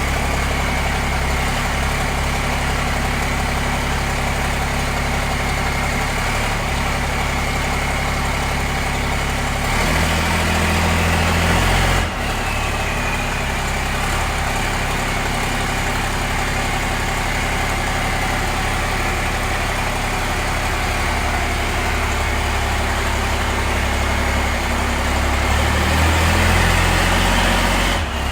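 Pickup truck engine idling, picking up speed briefly twice: about ten seconds in and again near the end, each time dropping back suddenly to idle.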